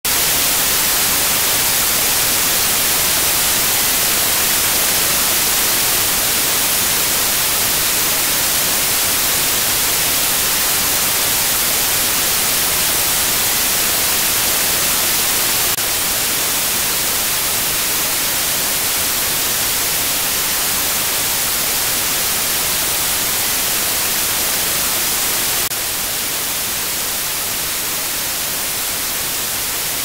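Loud, steady white-noise static hiss, brightest in the high end, with no other sound over it. It drops slightly in level twice, about halfway through and again near the end.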